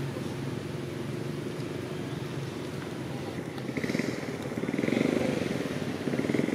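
A motor engine running steadily, getting louder about four to five seconds in and again near the end.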